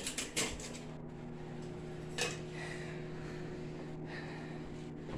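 Microwave oven starting up after a click about half a second in, then running with a steady low electrical hum; a light clack about two seconds in.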